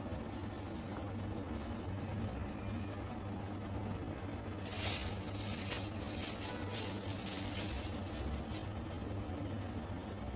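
Coloured pencil scratching on paper in quick, short, repeated strokes, busier and louder from about halfway through, over a steady low hum.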